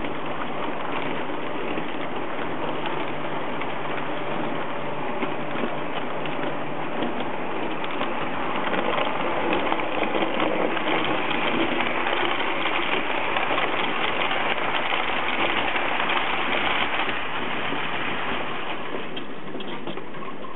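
Trix Express model trains running on metal track: a continuous rattling clatter of wheels on the rails with some motor hum. It gets louder for several seconds in the middle, as a second train runs on the neighbouring track.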